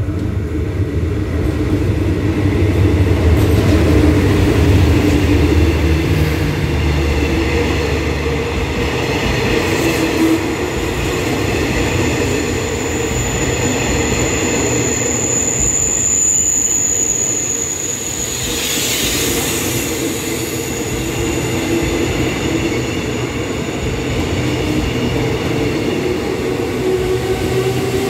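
Diesel-hauled passenger train pulling slowly into the station: the locomotive's heavy engine rumble dies down after the first several seconds, and the carriages roll past on the rails. About halfway through, a steady high squeal lasts a few seconds as the train slows, followed by a short hiss.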